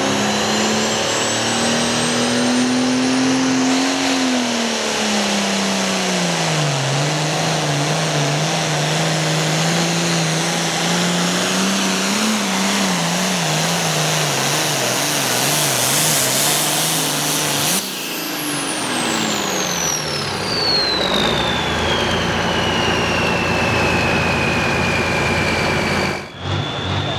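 International Harvester Super Pro Farm pulling tractor's turbocharged diesel engine running flat out under load as it drags the sled; its pitch rises for the first few seconds, then drops and holds. About two-thirds of the way through the throttle comes off, and the turbo's high whine winds steadily down in pitch until the sound cuts off abruptly near the end.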